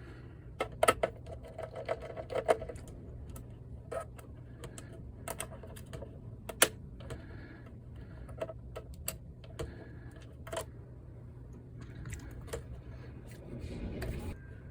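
Irregular sharp clicks and taps of a screwdriver and small metal and plastic parts while the screws holding a PlayStation 5 Slim's disc drive are taken out.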